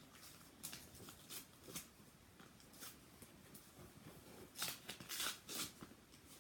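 Paper rustling and crinkling in short irregular handfuls as a small gift note is opened by hand, busiest about five seconds in.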